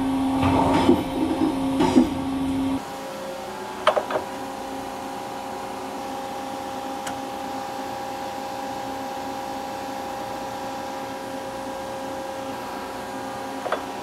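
A steady machine hum with a run of clanks and clicks as a tool is handled at a CNC machining centre's spindle. About three seconds in this gives way to a quieter, steady electrical hum with a couple of light clicks.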